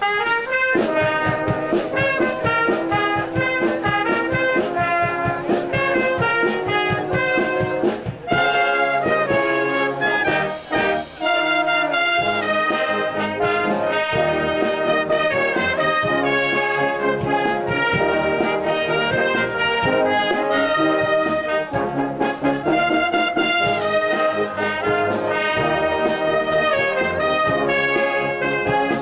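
Brass band playing a tune at full volume, with many sustained brass notes and drum beats in the first few seconds. The music comes in right after a brief lull.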